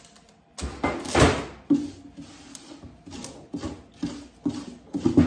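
A spoon scraping leftover fondant paste out of a pot, a run of scrapes and knocks about two a second, the loudest about a second in.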